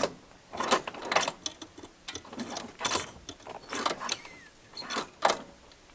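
Irregular sharp metallic clicks and rattles, roughly one or two a second, with no engine running.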